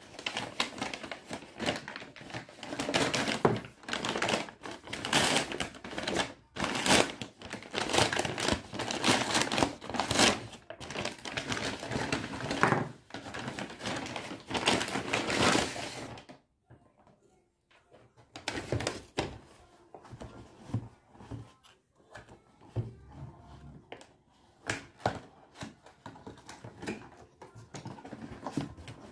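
Brown paper mailer being torn open and crinkled by hand: a dense run of loud tearing and rustling for about sixteen seconds. After a short pause come quieter knocks and scrapes of a cardboard box being handled.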